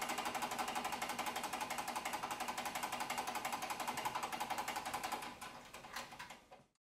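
Wilesco toy steam engine running, its steam cylinder chuffing in a rapid, even beat as the flywheel spins. The beat weakens about five seconds in and dies away to silence near the end.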